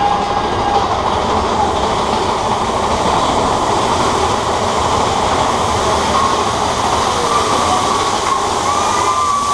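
Big Thunder Mountain Railroad mine-train roller coaster running along its track: the steady running noise of the coaster cars on the rails, with a thin high tone rising over it in the last few seconds.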